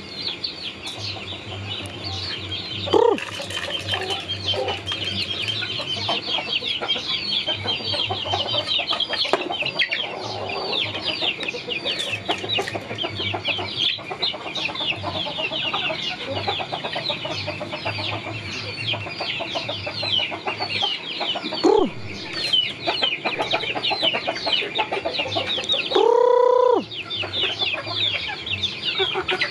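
A flock of chickens at feed: a steady chorus of rapid high peeping from young birds, with occasional clucks from adult chickens. One louder, drawn-out chicken call stands out about three seconds before the end.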